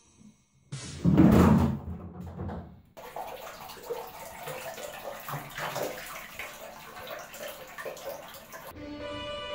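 Cats in water: a loud splash and bump about a second in as a cat lands in a plastic basin of water, then light, irregular splashing and dripping as a cat moves through shallow water in a bathtub.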